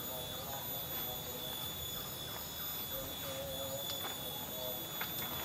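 Forest insects droning in several steady high tones, with faint, scattered lower warbling calls and light rustles.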